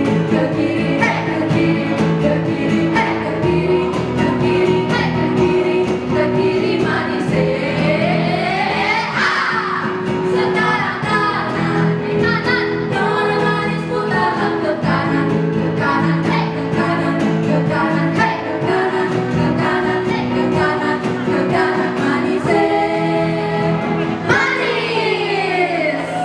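Music with singing and a steady beat, played for a group dance. Rising sweeps come through about nine seconds in and again near the end.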